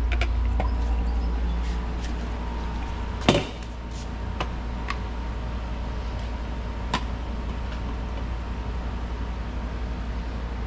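A pressure cooker of lentils being cooled down to release its pressure, heard as a steady rushing noise with a low rumble. One sharp knock comes about three seconds in, and a few lighter clicks follow.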